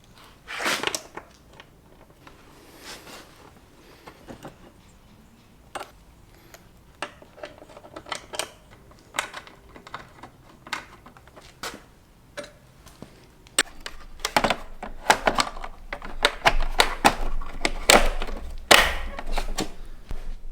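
Scattered clicks, taps and knocks of hard plastic motorcycle fairing parts and mirror hardware being handled and fitted, sparse at first and turning into a busier run of clicking and rattling about two-thirds of the way through.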